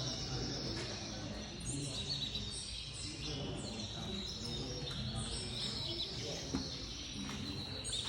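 Many caged Gloster canaries chirping and twittering in quick short calls, over a low murmur of people talking.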